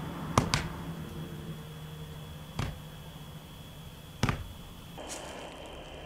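A few short sharp knocks over a steady low hum and hiss: a quick double knock near the start, then single knocks about two and a half and about four seconds in.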